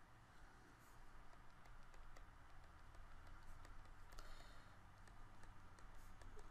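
Near silence: faint, scattered clicks of a stylus tapping on a tablet screen during handwriting, over a low steady hum.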